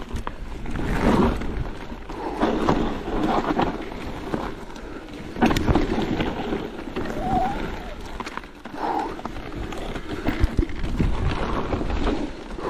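Mountain e-bike being ridden over rough trail: wind rushing on the microphone in uneven surges over a steady low rumble of tyre and trail noise, with scattered knocks and rattles from the bike on bumps.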